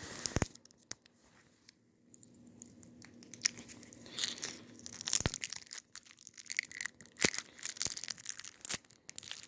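Plastic candy packaging being handled, crinkling and crackling, with several sharp clicks.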